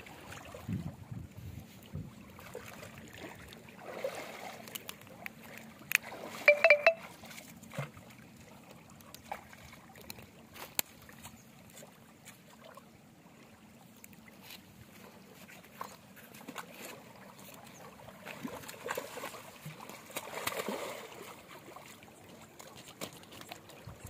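River water splashing and sloshing around a fisherman wading out with a hooked rohu on his rod, in uneven swells with a larger stretch of splashing near twenty seconds in. A quick run of sharp clicks about six and a half seconds in is the loudest moment.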